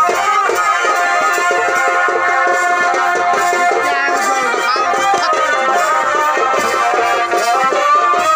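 Traditional Purulia Chhau dance music: a shehnai-type reed pipe plays a loud, wavering, held melody over light drumming.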